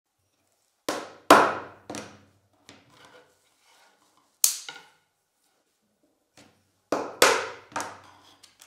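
Wooden mallet knocking a chisel down through a thin strip on a cutting mat: sharp knocks in groups of two or three, with pauses between, and a few light clicks.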